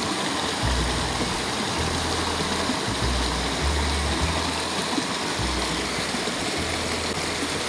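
Fast-flowing stream rushing and splashing over rocks, a steady loud water noise, with background music and its low bass line underneath.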